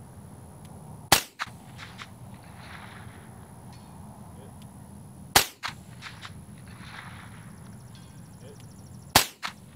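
Three shots from a .22 LR Ruger 10/22 semi-auto rifle, about four seconds apart. Each is a sharp crack followed a quarter second later by a quieter echo.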